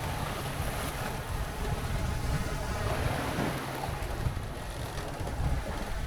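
Water rushing along a sailing catamaran's hulls while under way, with wind buffeting the microphone in a steady low rumble.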